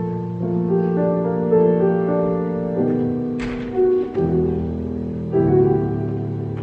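Grand piano played solo in a slow improvisation: held chords changing about every second, with new chords struck at several points. A short noisy sound cuts in about halfway through.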